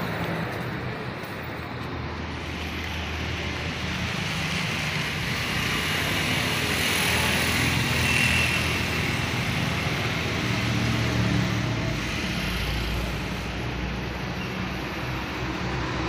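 Steady road traffic noise with vehicle engines running, swelling as a vehicle passes about halfway through.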